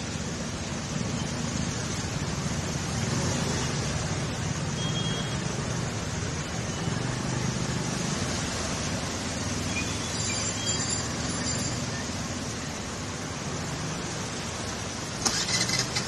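Steady hiss with the low hum of a motor vehicle's engine passing along a flooded street; near the end a louder, rougher splashing as a cycle rickshaw and a motorbike come through the water.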